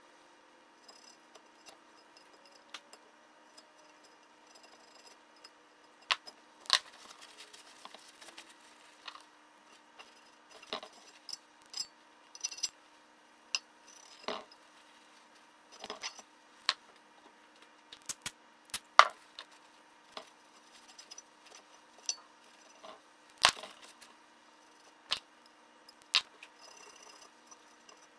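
Scattered sharp clicks and taps, a couple of dozen at uneven intervals, from a small hand tool and parts knocking against the cast-aluminium crankcase of a Polaris SLT780 two-stroke engine during bench work. Under them is a faint steady hum.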